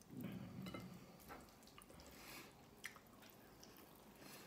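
Faint eating sounds: a person chewing with wet mouth clicks and a few small clicks of fingers picking rice off a glass plate, close to near silence.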